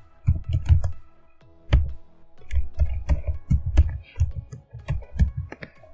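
Typing on a computer keyboard: quick, irregular runs of key presses with short pauses, over faint background music.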